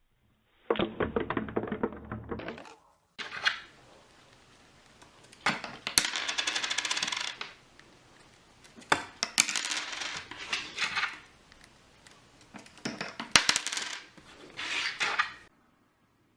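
Several bursts of rapid clinking and rattling, like small hard objects being shaken or dropped, the first about a second in and the last ending shortly before the end.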